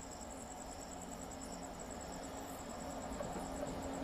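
Faint insect chirping, a fast, even, high-pitched pulsing trill, over a low steady hum.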